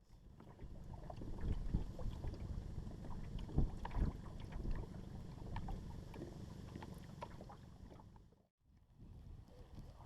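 Wind rumbling on the microphone, with irregular knocks and taps of gear and water against a fishing boat. The sound cuts out briefly about eight and a half seconds in.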